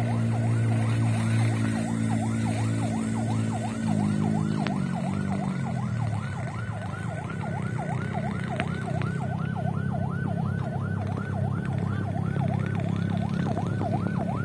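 A siren yelping rapidly up and down, about three sweeps a second, over a low steady drone.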